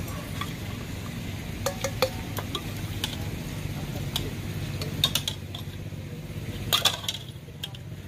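Metal spoon clinking and scraping against a stainless steel mixing bowl as a spicy Thai salad is mixed: a scattering of sharp, irregular clinks over a steady low background hum.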